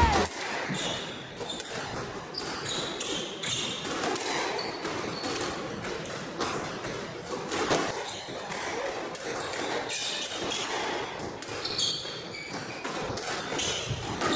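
Squash rally: repeated sharp hits as rackets strike the ball and the ball smacks the court walls, with short high squeaks from rubber-soled shoes on the wooden floor.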